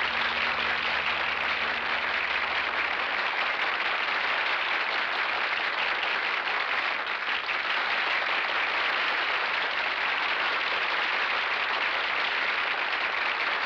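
A roomful of people applauding, many hands clapping in a steady, even wash that holds at one level throughout. The song's last sustained chord fades out under the clapping in the first couple of seconds.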